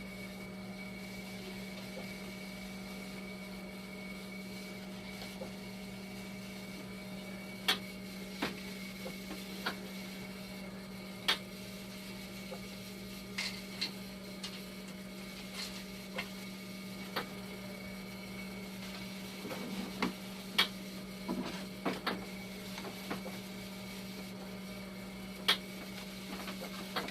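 Dialysis machine running under test: a steady hum with a faint high whine. From about eight seconds in, irregular sharp clicks come every second or so.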